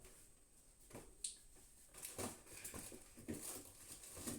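Faint, scattered light knocks and rustles of handling and movement, a few short sounds a second or so apart.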